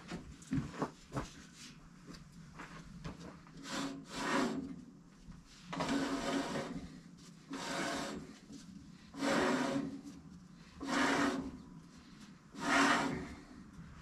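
Woodland Mills HM130 MAX sawmill's band blade and wheel turned slowly by hand, scraping once per push: six rasping strokes about a second and a half apart. The wheel turns stiffly, which the owner suspects is a blade tensioned too tight.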